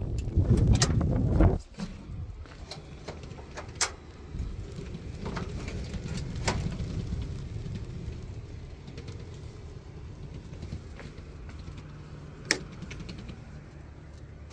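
Wind rumbling on the microphone for about the first second and a half and cutting off, then a wooden door's handle and latch clicking as it is opened, followed by scattered light knocks and clicks, with one sharp click near the end.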